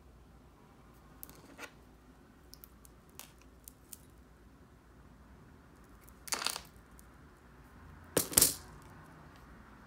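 Small handling noises of rhinestone craft work with the glue tube and pick tool: a few light clicks, then two short, louder rustles about six and eight seconds in, the second the louder.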